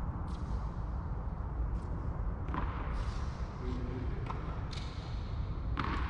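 Tennis rally: racket strings hitting the ball and the ball bouncing on the court, sharp pops about every half second to a second, the loudest near the end, over a steady low rumble.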